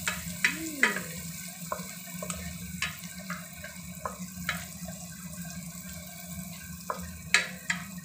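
Garlic and dried shrimp sizzling in hot oil in a nonstick pan, with a wooden spatula stirring and knocking against the pan every second or so, the loudest knock near the end. A steady low hum runs underneath.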